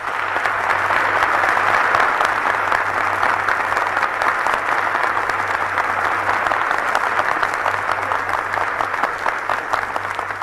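A large audience applauding steadily, swelling up in the first second, heard on an old archival recording with a steady low hum underneath.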